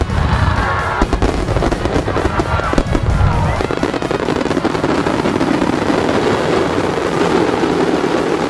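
Aerial fireworks shells bursting in rapid succession, a string of sharp bangs in the first few seconds. These give way to a dense, continuous crackle of exploding stars that stops shortly after the end.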